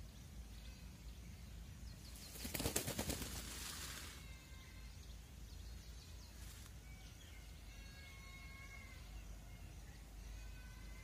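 Indian peacock raising and shaking its train feathers in display: a rapid, dry rattling rustle for about two seconds, a couple of seconds in. Faint chirps and short whistled notes of small birds are heard around it.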